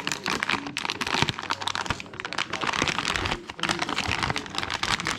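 Plastic packaging crinkling and crackling as it is handled and opened.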